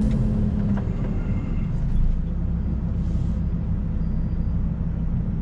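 Diesel semi-truck engine running steadily, a low rumble with no revving.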